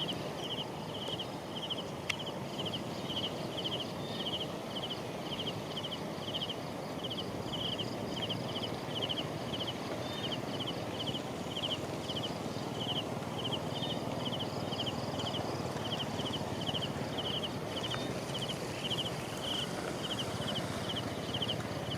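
A small animal's chirping call. Each chirp is a quick rattle of pulses, repeated steadily a little under twice a second over a steady low rushing noise.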